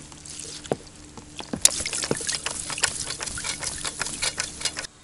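Water splashing and pouring off a fishing landing net as its mesh is swept through the water and lifted out, a busy run of splashes and drips that cuts off suddenly near the end.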